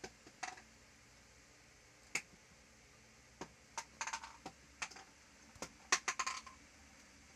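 Scattered light clicks and taps of small plastic Play-Doh tubs and lids being handled on a table, coming irregularly with quick clusters about four and six seconds in.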